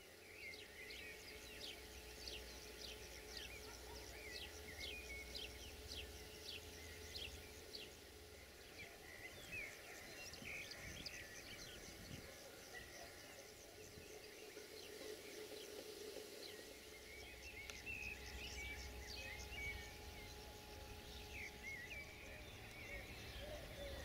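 Faint outdoor ambience: birds chirping in quick series of short high notes, with a low steady rumble underneath.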